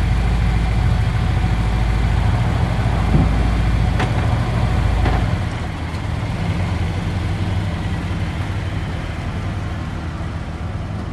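K20-swapped Acura EL's four-cylinder engine running steadily; about five seconds in its deepest rumble drops away and it carries on a little quieter.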